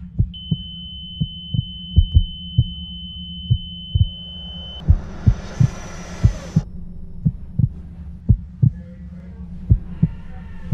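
Film sound design: a heartbeat thudding about twice a second, often in lub-dub pairs, over a low steady drone. A steady high-pitched tone runs through the first few seconds. About five seconds in, a hissing swell rises and then cuts off suddenly.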